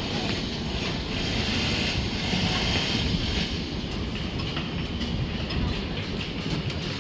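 Wind buffeting the microphone: a steady, rumbling, rushing noise.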